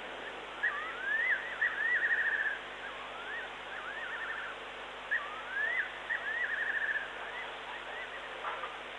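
A night bird's whistled song, given twice: each phrase has rising slurred whistles followed by a fast quavering trill. A steady background hiss runs underneath.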